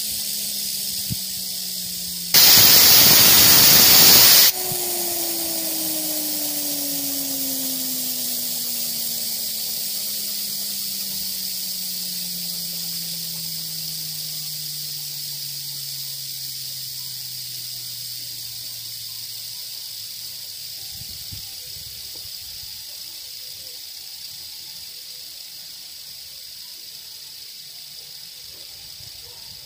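Hand-held fidget spinner whirring, its pitch falling steadily as it slows. About two seconds in, a loud two-second rush of air spins it back up. The whir then comes back higher and again falls slowly and fades as the spinner runs down.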